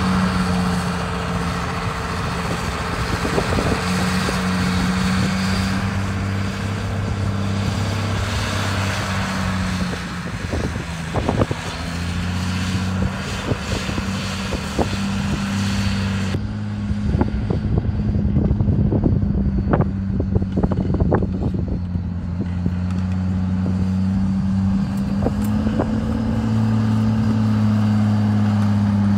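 Huber-Warco motor grader's engine running steadily under load as it grades a dirt street, its pitch shifting a little. A cluster of sharp knocks and clatter comes in the middle, and the sound grows louder near the end as the machine comes close.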